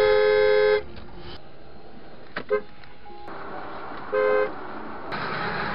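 Car horn honking with a two-note tone: one long honk of under a second at the start, two quick taps about two and a half seconds in, and another short honk about four seconds in.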